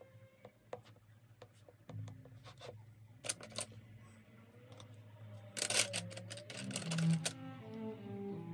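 Clicks and short rustling scrapes from handling drawing materials on a sketchbook page, a louder cluster of rustling about six seconds in. Low bowed-string notes come in over the last two seconds.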